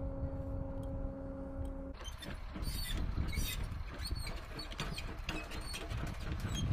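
A steady droning hum with low rumble, which cuts off suddenly about two seconds in. After that come scattered metallic clicks, knocks and short high squeaks as the crew handle an artillery piece's mechanism.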